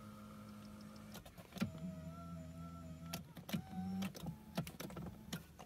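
Infiniti M35x power seat motors running in about four short runs as the seat is driven forward and back by its switch, with short clicks between runs. The seat moves as it should after its broken frame bracket was welded.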